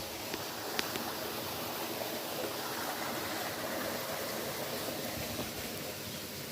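Mountain stream water running steadily over rocks, with one small click under a second in.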